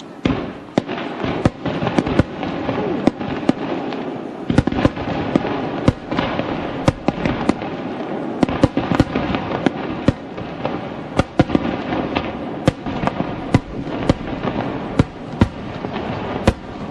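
Fireworks going off: an irregular run of sharp bangs, several a second, over a continuous crackle.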